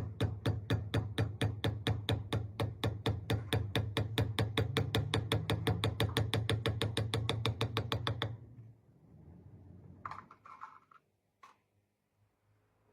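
Background music with a fast, even ticking beat, about six ticks a second, over a steady low tone; it stops about eight seconds in. A few short knocks follow a couple of seconds later.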